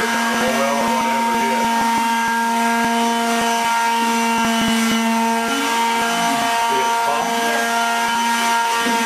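Woodworking shop machinery running steadily with a constant hum, with scattered clicks and ticks, most of them in the first half.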